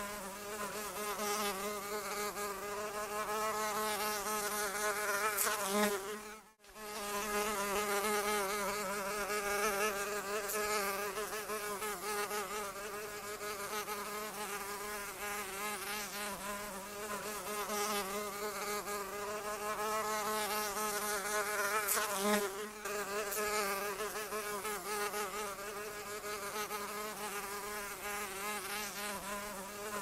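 Houseflies buzzing: a steady droning hum whose pitch wavers continuously, cutting out for a moment about six and a half seconds in.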